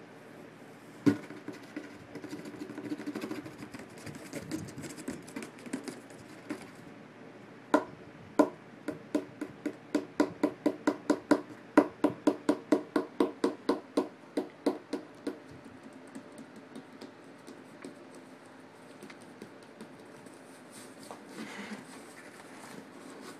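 Tapping on a cardboard box: a single knock about a second in, light rustling, then a run of even taps about three a second in the middle.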